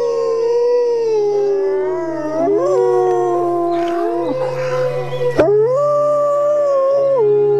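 Several wolves howling together: long, overlapping howls that slide up and down in pitch. A sharp click comes about five seconds in.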